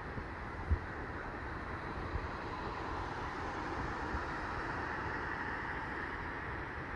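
Steady distant traffic noise, an even rumble and hiss with no calls in it, and a single low thump under a second in.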